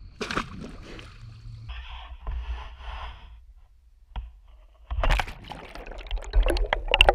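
A frog gig stabbing into the grassy, muddy shallows of a pond, heard close up from a camera fixed to the gig's pole. A sharp splash and strike comes just after the start, then rustling and scraping through wet grass, and from about five seconds in, loud churning splashes and sloshing as the spear is driven deep into the mud and water.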